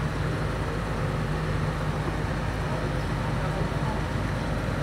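Loaded dump truck's diesel engine running with a steady low drone.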